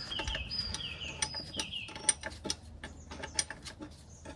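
Steel K-Jetronic fuel injection lines and their union fittings being worked into place by hand on a Mercedes M117 V8. A run of short squeaks, each falling in pitch, about three a second, stops about two seconds in, followed by scattered light metallic clicks.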